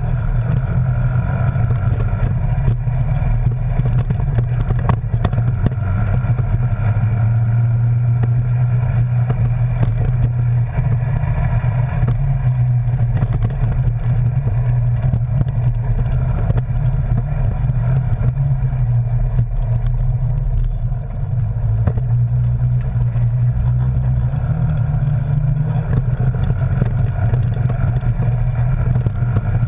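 Arctic Cat Wildcat Sport side-by-side's engine running steadily at trail speed, with the cab and body knocking and rattling over a bumpy, rutted track.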